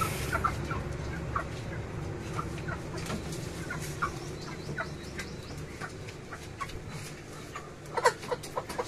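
Caged broiler chickens clucking: short scattered calls throughout, with a louder cluster of several calls about eight seconds in.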